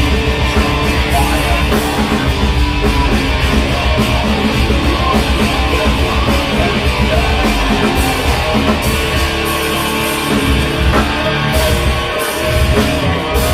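Live rock band playing loud, with electric guitar prominent. The bottom end drops away briefly near the end before the full band returns.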